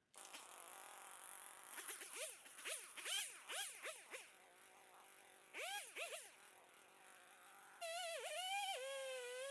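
Faint chainsaw engine revving in a run of short rising-and-falling blips, about two a second, then two more blips, then running steadily with a wavering pitch for about two seconds near the end.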